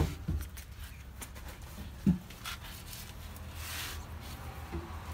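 Quiet handling noises: a sharp knock at the start, a short thump about two seconds in, and a soft papery rustle of a tissue near four seconds in, over a low hum.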